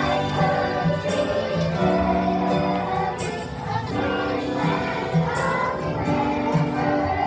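A choir singing held notes to an instrumental accompaniment.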